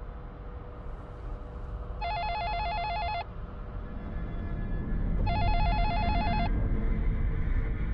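A telephone ringing with a warbling electronic trill: two rings of about a second each, roughly three seconds apart. A low rumble builds up underneath and grows louder toward the end.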